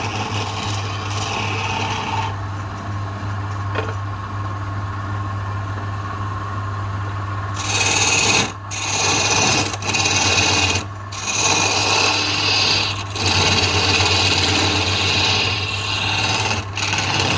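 Wood lathe running with a steady low hum; about eight seconds in, a hand-held turning chisel meets the spinning wooden spindle and a loud scraping hiss of cutting starts, breaking off briefly a few times.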